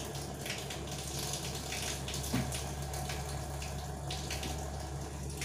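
Steady background hiss and low hum, with a few faint short strokes of a marker writing on a whiteboard.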